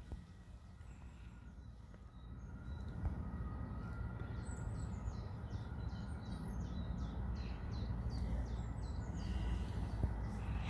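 A small songbird singing a quick run of short, high repeated notes, about three a second, for a few seconds in the middle, over a steady low outdoor rumble.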